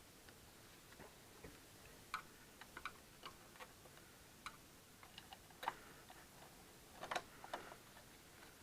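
Scattered light clicks and taps of small parts being handled, irregular and far apart over near silence, with a slightly louder click about five and a half seconds in and a short cluster of them about seven seconds in.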